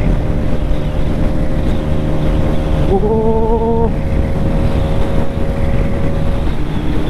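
Bajaj Pulsar RS200's single-cylinder 200 cc engine pulling hard in fourth gear at highway speed, its steady drone mixed with heavy wind rushing over the microphone. A brief steady tone sounds for about a second around three seconds in.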